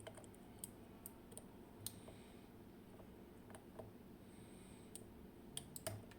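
Faint, irregular clicks of a flag pick working the sliders and pins inside a Vachette V DIS+ dimple lock cylinder while it is being picked under tension, about a dozen clicks spread unevenly through the stretch.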